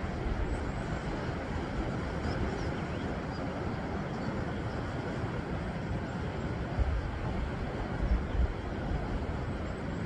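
Steady wash of sea surf breaking on rocks along the shore, with wind buffeting the microphone in a few low gusts near the end.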